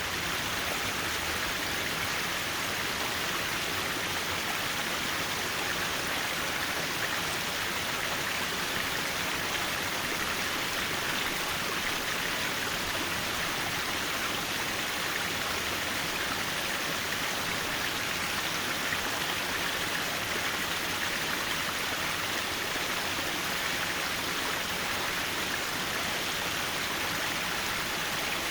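Mountain valley stream flowing steadily: an even, continuous rush of water.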